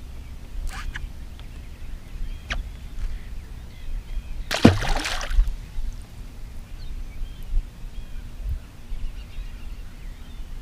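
Open-water ambience from a bass boat: a steady low wind rumble with water lapping at the hull and faint birds chirping. There are a few small clicks near the start and one louder, brief rush of sound about four and a half seconds in.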